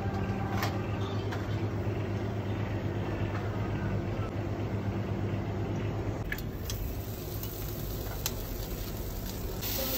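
Steady low hum of commercial kitchen machinery, with a few light clicks over it. The hum eases slightly about six seconds in.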